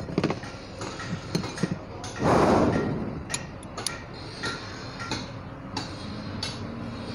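Hand tools and small metal parts of a Bock bus AC compressor clicking and clinking on a steel workbench as its oil pump is fitted. About two seconds in there is a louder noisy burst, under a second long.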